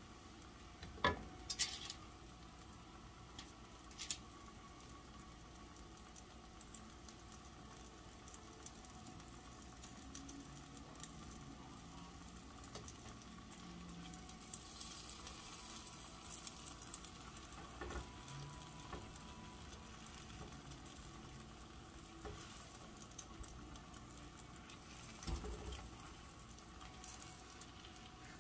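Tortillas frying in oil in a cast-iron skillet: a faint, steady sizzle, with a few short knocks of the wooden spoon and spatula against the pan and food.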